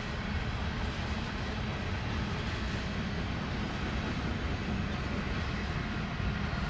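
Norfolk Southern freight train passing: a steady low rumble of diesel engines over the roll of wheels on the rails.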